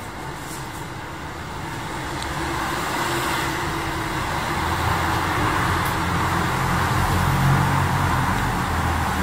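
Street traffic noise, with a road vehicle's low rumble growing louder through the middle and strongest near the end.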